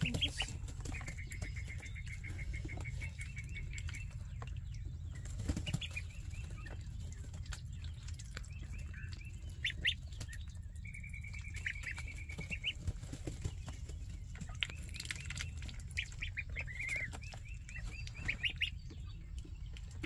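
Week-old ducklings and goslings peeping in fast, high trills that come in several runs of a second or two, amid scattered soft taps, pattering and fluttering of small wings, over a steady low hum.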